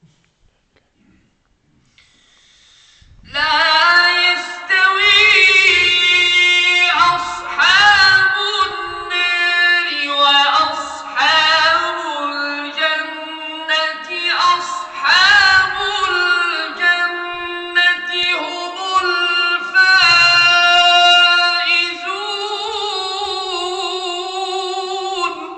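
A single voice chanting Quran recitation in a melodic, ornamented line, with short breaks between phrases; it starts about three seconds in.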